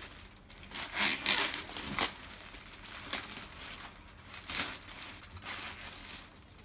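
Clear plastic wrapping rustling and crinkling as it is pulled and handled off a rolled, compressed mattress, in several swishes, the loudest about a second in.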